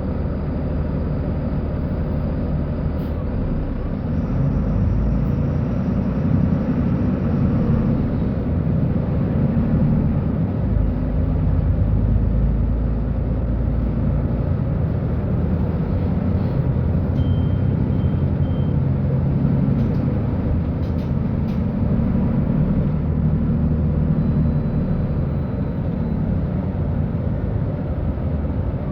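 Mercedes-Benz O-500U city bus engine running with a steady low rumble, getting louder about four seconds in and staying so.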